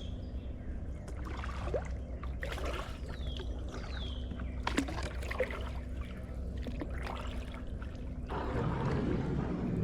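Kayak paddling: paddle blades dipping and water trickling and dripping off them, growing into a fuller rush of water about eight seconds in. A few short, high chirps that fall in pitch are heard in the first half.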